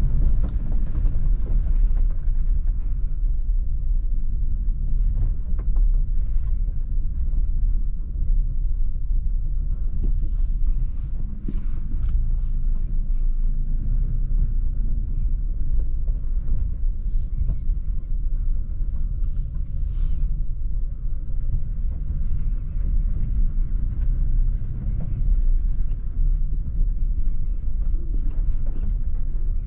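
Jeep Avenger 1.2 turbo petrol SUV on the move: a steady low rumble of tyres and engine, with scattered light knocks and rattles.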